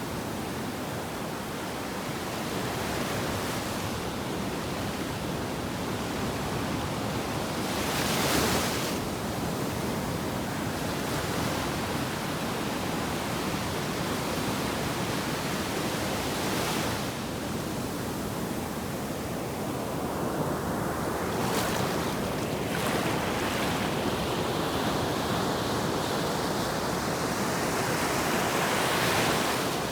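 Ocean surf: waves breaking and washing up a beach in a steady rush, with several louder surges as bigger waves break.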